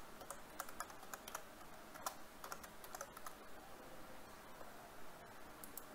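Faint typing on a computer keyboard: irregular key clicks as a short line of code is typed.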